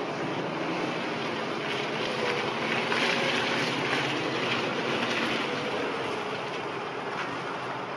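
Range Rover engine running as the 4x4 struggles on a slight muddy incline, with a steady wash of engine and tyre noise. It grows louder for a few seconds in the middle, then eases off.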